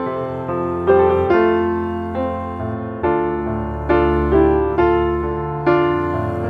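Background piano music: soft notes and chords struck every second or so over a sustained bass.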